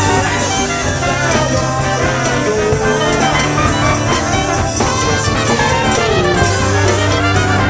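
A live band playing a song, loud and continuous, over a steady bass line.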